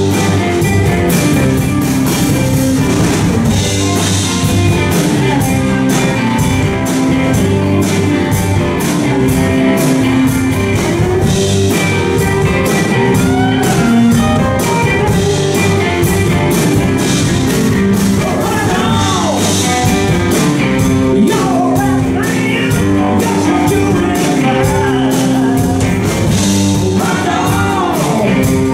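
Live rock band with Strat-style electric guitars, bass and drums playing a blues-rock number, the lead electric guitar out front; a man's voice is singing near the end.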